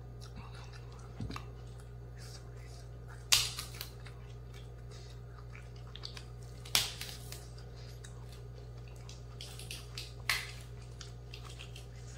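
Crisp bites into a raw vegetable: three loud crunches about three and a half seconds apart, with fainter chewing clicks between them.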